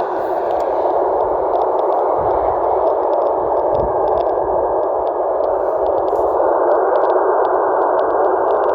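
Steady receiver hiss from a 78 GHz amateur radio receiver's audio, a band of noise held to the narrow voice passband, with faint scattered clicks.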